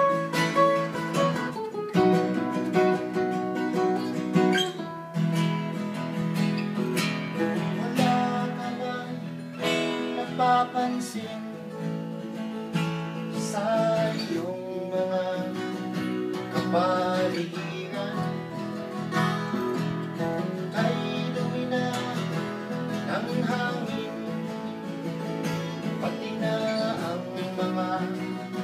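Acoustic guitar playing a folk song, strummed and picked in a steady rhythm.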